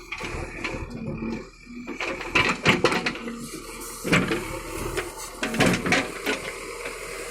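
JCB 3DX backhoe loader idling, with irregular knocks and clunks over the steady engine hum.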